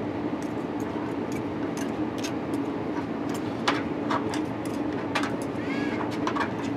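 Two metal forks clicking and scraping against a plastic cutting board as cooked pork is shredded, in short irregular ticks over a steady low hum.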